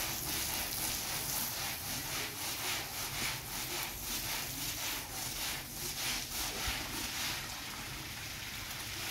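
A long-handled brush scrubbing a wet, soapy rug on tiled paving, its bristles swishing back and forth in quick, even strokes, about two to three a second.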